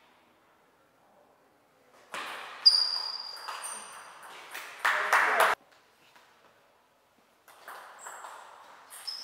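Table tennis ball hit back and forth off rubber-faced bats and bouncing on the table: sharp clicks, some with a high ringing ping, the loudest about two and a half seconds in. Voices in the hall come and go between the strokes.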